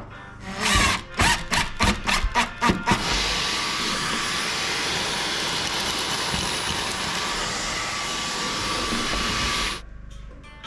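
Handheld cordless vacuum cleaner running steadily for about seven seconds, a rushing noise with a thin high whine, then switching off near the end. Just before it comes a quick series of about eight short stop-start bursts.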